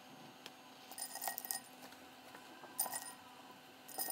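Ice cubes clinking against a glass bowl of salted ice water as pieces of raw snow crab leg are lifted out, in three short bursts of sharp clinks.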